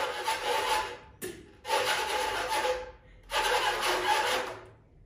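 Whooshing transition sound effects: three noisy swells, each rising sharply and fading out over about a second and a half, with a faint steady tone underneath, cutting off near the end.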